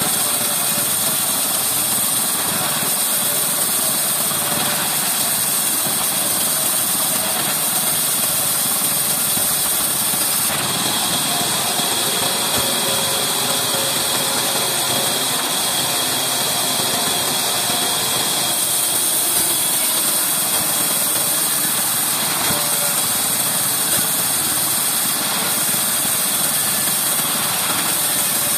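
Large vertical band saw running steadily as its blade rips lengthwise through an old reclaimed wooden beam, a continuous loud whirring hiss with no breaks.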